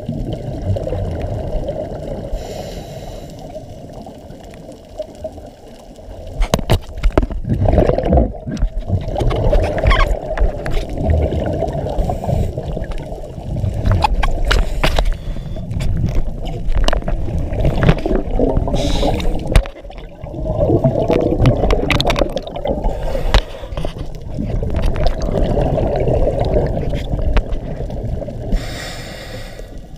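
Scuba diver's regulator exhaust bubbles gurgling underwater, in long stretches with a quieter spell near the start and a brief dip about two-thirds through, with scattered sharp clicks.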